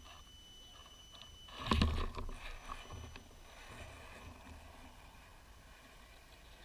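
Radio-controlled rock crawler on a trail: a thin high electric-motor whine comes and goes, with a loud knock and clatter about two seconds in, over a low rumble.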